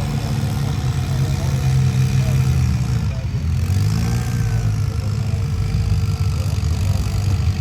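A vehicle engine running steadily, its low drone rising and falling in pitch and dipping briefly about three seconds in.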